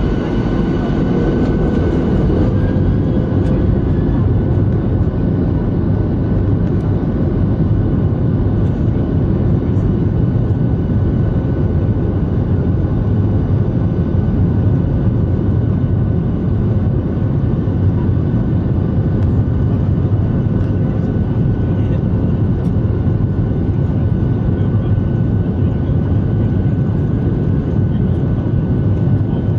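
Cabin noise of a Boeing 737-800 taxiing, its CFM56-7B engines at idle: a steady low drone with a faint, steady whine above it.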